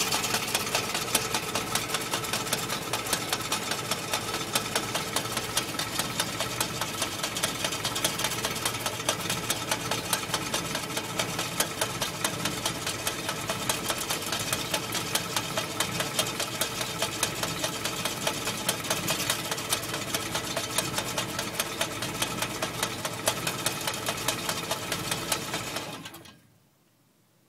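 Willys MB jeep's four-cylinder Go Devil flathead engine running with a fast, steady rattle that the owner puts down to the clutch. The engine is shut off about 26 seconds in and the rattle dies away.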